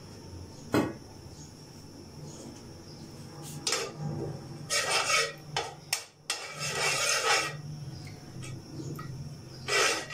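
A slotted spatula scraping and rubbing across the bottom of a metal pan in several short strokes, with a sharp click a little under a second in.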